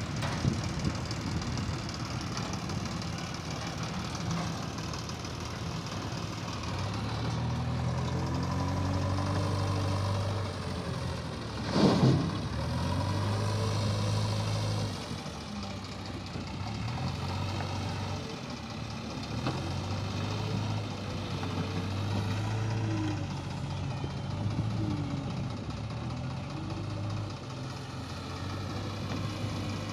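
Diesel engines of a JCB 3DX backhoe loader and a tractor running, with the engine speed rising and falling as the loader works. A sudden loud bang about twelve seconds in.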